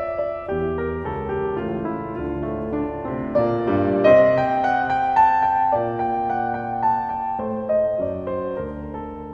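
Background piano music: slow, gentle chords and melody.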